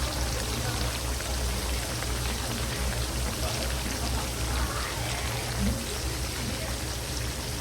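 Fish frying in hot oil: a steady sizzle with small crackles and pops, over a low steady hum.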